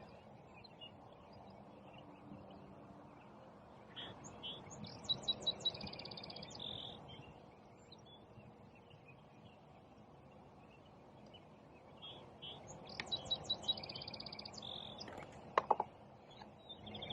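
A songbird singing twice, each phrase a few quick notes running into a fast trill, over a faint outdoor hush. A couple of short clicks come near the end.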